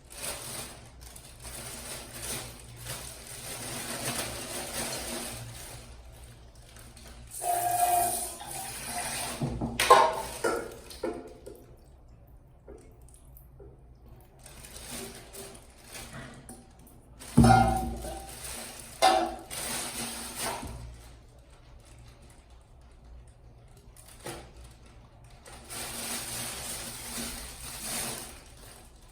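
Water running and splashing in several bursts a few seconds long, with sharp knocks and clatter in between.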